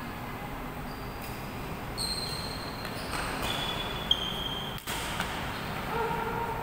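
Badminton doubles rally in a large hall: shoes squeaking on the court floor in short high squeaks, and sharp racket hits on the shuttlecock, the loudest about four seconds in.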